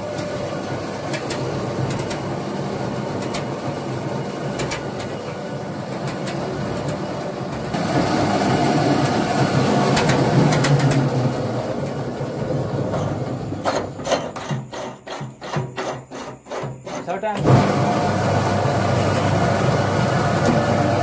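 Borewell rig machinery running while drill pipe is pulled and unscrewed, with clanks of steel pipe wrenches on the pipe joints. It gets louder about eight seconds in, and a little past the middle there is a quick rattling of about five clicks a second for some three seconds. Voices are heard behind it.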